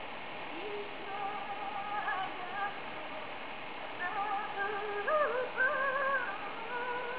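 A woman singing a slow, unaccompanied melody in long held notes with small wavering turns and slides between them.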